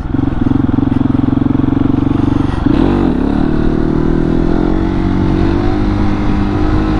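Husqvarna 701's big single-cylinder engine pulling at steady revs during a wheelie attempt. About three seconds in the revs dip briefly, then the engine picks up again with its pitch rising slowly.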